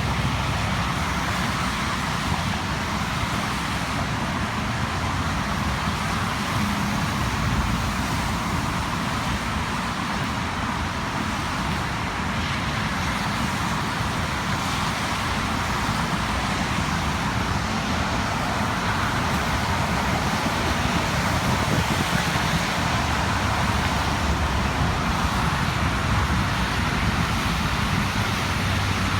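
Steady road traffic noise: a continuous low rumble and hiss of passing cars, with no distinct single vehicle standing out.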